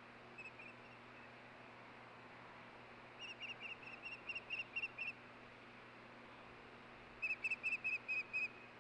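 Osprey calling: two runs of short, high whistled chirps, about four a second and seven or eight notes each, the second run louder, with a few faint notes just before. A steady hiss lies beneath.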